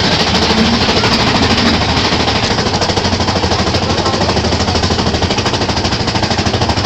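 Mine-train roller coaster clattering with a fast, even mechanical clacking, the kind made by a train being hauled up a chain lift hill.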